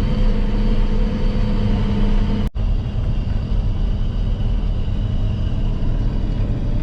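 Engine of a heavy farm vehicle running steadily at a constant pace, with a brief sudden dropout about two and a half seconds in before the running carries on.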